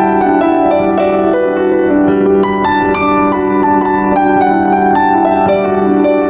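Instrumental background music: a run of quick, ringing notes, several a second, over a steady held low note.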